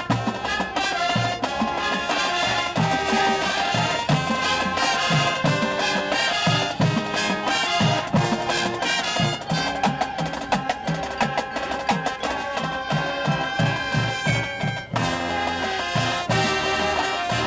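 High school marching band playing its field show: brass carrying the tune over a steady drumline beat.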